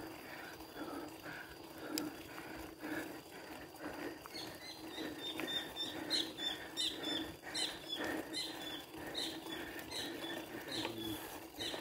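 Bicycle riding along a paved lane: steady tyre and drivetrain noise with an even, rhythmic ticking. From about four seconds in, short high chirps repeat two or three times a second over it.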